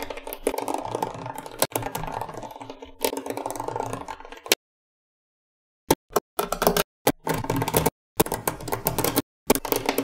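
Small magnetic balls clicking and rattling against each other as they are peeled up, folded and pressed into rows by hand, in quick dense clatters. The clatter stops dead for about a second and a half near the middle, then comes back in short bursts.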